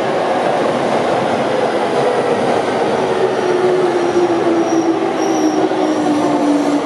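JR East E231-series Yamanote Line electric train rolling into the platform and slowing, with wheel and rail noise and a motor whine that falls steadily in pitch as it brakes. Faint high wheel squeal comes in briefly in the middle.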